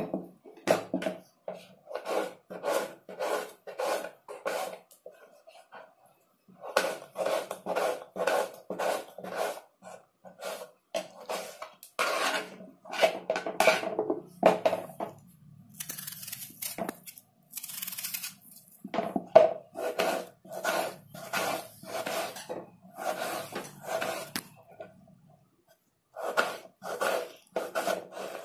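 Kitchen knife chopping raw potato into small cubes on a chopping board: steady rhythmic knocks of the blade hitting the board, about three a second, with a few short pauses.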